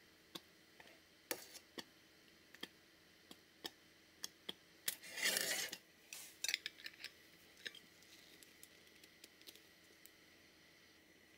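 Small glass jar being filled with apple puree and closed with a lid. Faint scattered clicks of utensil and lid against glass, with a louder scraping sound lasting about a second, about five seconds in.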